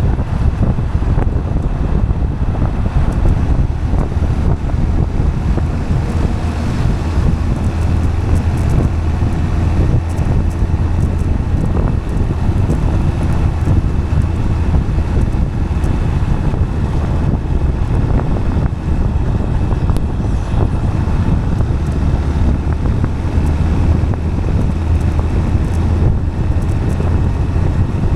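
Steady rush of wind on the microphone over a continuous low rolling hum, as of tyres running on asphalt while moving at speed.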